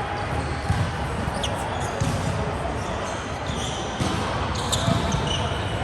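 Indoor volleyball play: repeated thuds of the ball being struck and landing on a hard court, with a few short high squeaks and faint voices in the hall.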